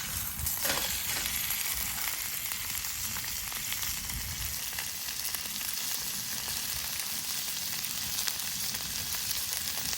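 Meat sizzling as it cooks: a steady frying hiss with small scattered crackles.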